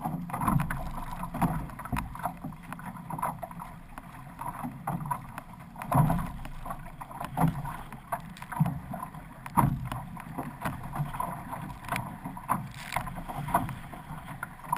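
Water rushing past the hull of an OC6 outrigger canoe under way. Paddle strokes splash into the water about once every second or so at an uneven rhythm.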